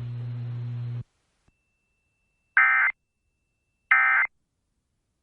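Emergency Alert System end-of-message data tones on FM radio: short, identical electronic warbling bursts of the SAME digital header, two of the three repeats, a little over a second apart. Before them a steady low hum on the broadcast cuts off about a second in.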